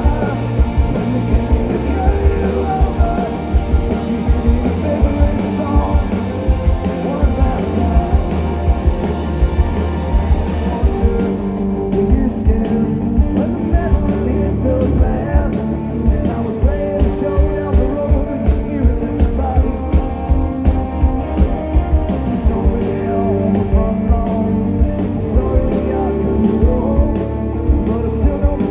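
Punk rock band playing live: a male lead singer over electric guitars, bass and a steady drum beat, heard from the audience with a heavy low end.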